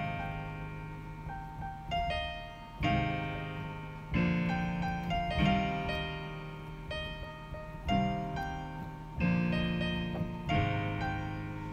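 Piano playing slow chords, a new chord struck about every one and a half seconds and left to ring out.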